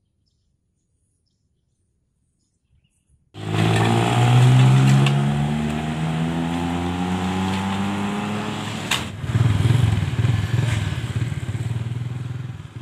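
After about three seconds of silence, a motor vehicle engine starts sounding, running with its pitch slowly falling; a sharp click comes about nine seconds in.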